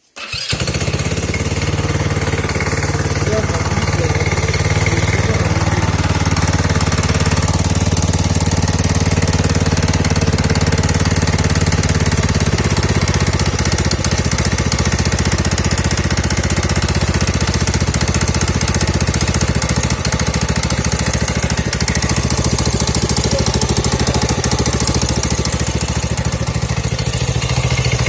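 GY6 150 single-cylinder four-stroke engine of a Dingo 150 idling steadily with a rattling knock, the knock the owner reports at idle and low throttle that goes away at higher revs.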